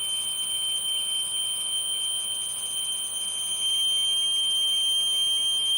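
A small whistle blown in one long, steady high note during a nasal nitric oxide test, while air is sampled from one nostril through an olive tip. Blowing the whistle keeps the soft palate closed so that only nasal air is measured.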